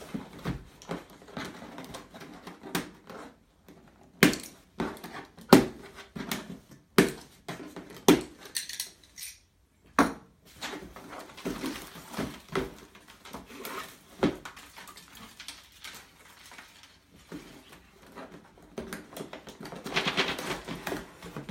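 A cardboard shipping box of Lego parts being opened and handled by hand: a series of sharp knocks and clatters with rustling of cardboard and packaging in between, and a longer rustle near the end.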